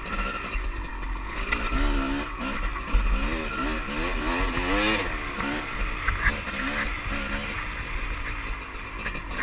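Dirt bike engine revving up and down over and over as the throttle is worked on a rough trail, with heavy low wind rumble on the helmet-camera microphone. A few sharp knocks, the loudest about three seconds in, come from the bike riding over rocks.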